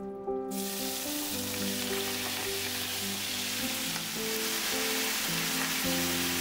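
Marinated sliced beef and onions hitting hot oil in a frying pan, sizzling. The sizzle starts suddenly about half a second in and holds steady as the meat is stir-fried.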